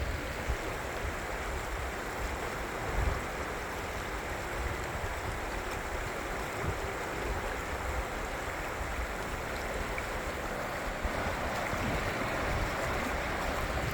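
Steady rushing of the Davidson River, a mountain trout stream, with low wind buffeting on the microphone.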